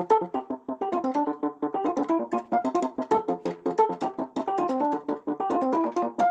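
A Samsung Galaxy ringtone melody passed through a voice-changer effect: a fast run of short, piano-like electronic keyboard notes, several a second.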